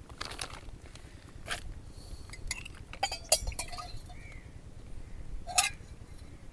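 A spoon and small cups clinking in a handful of light, scattered taps as salt is stirred into beaten egg.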